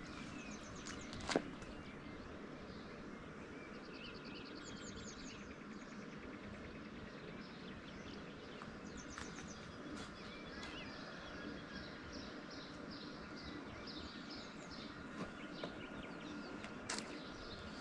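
Small songbirds singing: several fast high trills and runs of quick repeated chirps, over a faint steady outdoor background. A sharp click stands out about a second in, and another near the end.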